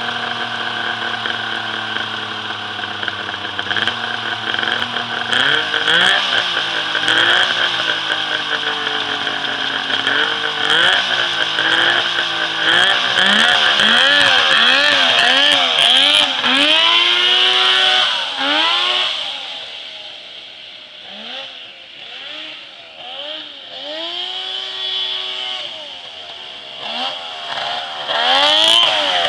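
Off-road buggy's Polaris three-cylinder snowmobile engine running, then revved up and down over and over. It drops quieter for several seconds past the middle and comes back loud near the end.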